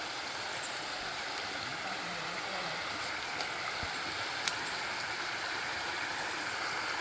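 Steady hiss of a river flowing over rocks, with one sharp click about halfway through.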